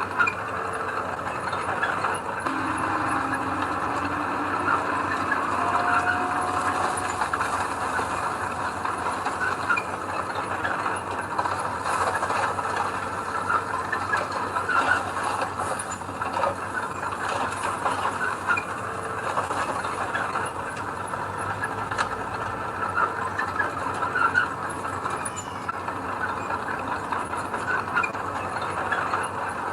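Earthmoving machinery at work: a diesel engine running steadily, with scattered metallic clanks and brief squeals throughout, typical of steel tracks and a moving blade or dump bed.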